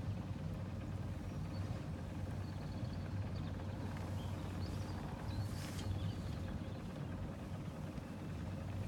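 Sailing yacht's engine running steadily, a low even hum, as the boat motors slowly through calm water.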